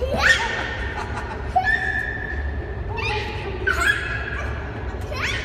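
A young child's high-pitched squeals: several short rising shrieks, some held briefly, over a low steady background rumble.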